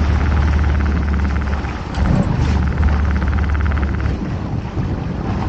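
Small fishing boat's engine running slowly, a steady low hum with a fast mechanical ticking over it, which weakens after about four seconds. Wind on the microphone and sea water can be heard throughout.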